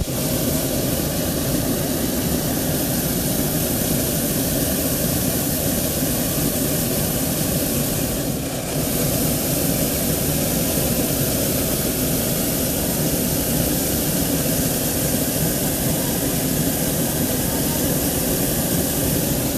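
Hot-air balloon's propane burner firing overhead, a loud steady rushing noise that starts suddenly and holds, with a brief dip about eight and a half seconds in.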